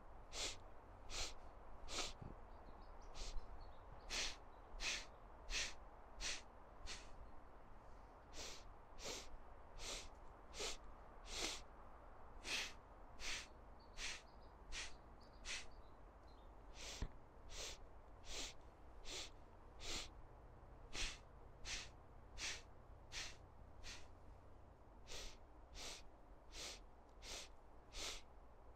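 A person breathing in short, sharp, sniffed steps through the nose, a little more than one breath a second in an even rhythm: a breathwork drill of five-part inhales and five-part exhales.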